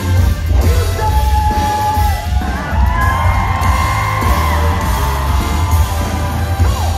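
Live band with a male lead singer, recorded from in the audience, with heavy bass; the singer holds a long note about three seconds in. Short whoops come from the crowd near the end.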